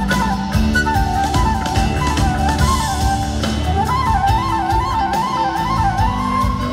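Live blues-rock band playing an instrumental passage: drums and sustained bass and keyboard notes under a gliding lead melody that breaks into a quick wavering trill about four seconds in.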